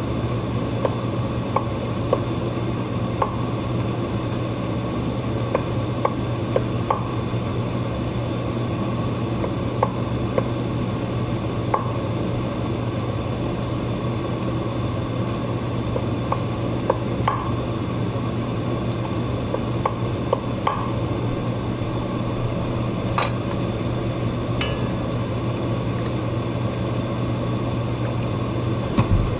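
Steady background hum and hiss with scattered light clicks and taps of a knife and hands on a wooden cutting board, about one a second at first and sparser later, and a dull knock near the end.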